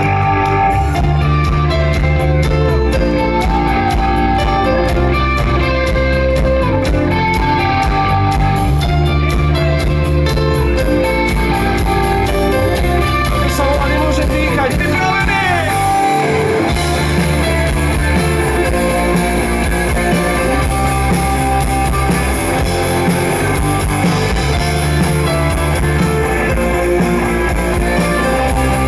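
Rock band playing live through a PA: electric guitars, bass guitar and drum kit in a steady instrumental passage, with a short break in the bass and drums about sixteen seconds in.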